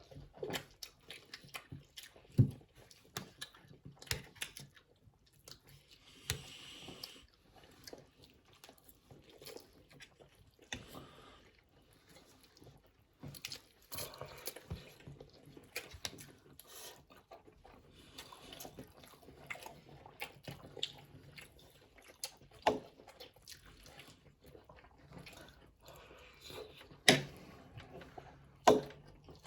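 People chewing and eating noodles and food close to the microphone, with scattered small sharp clicks and a few louder knocks, one about two seconds in and two near the end.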